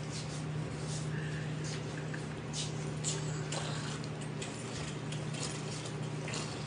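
Steady low hum with faint, scattered rustles and light clicks.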